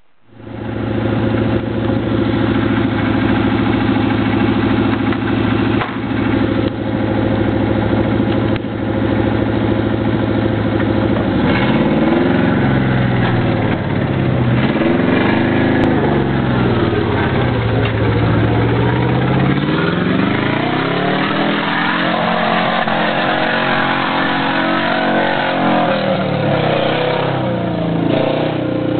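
V8 engine of an 80-inch Land Rover running at a steady note, then revved up and down again and again from about halfway through, its pitch rising and falling with each blip.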